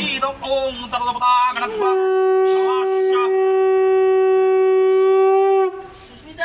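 Conch shell (shankha) blown for worship: a few short wavering notes, then one long steady note that cuts off shortly before the end.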